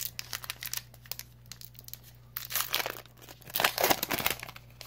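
Foil Pokémon trading-card booster pack wrapper being torn open and crinkled as the cards are pulled out: irregular crackling and tearing, loudest and densest in the second half.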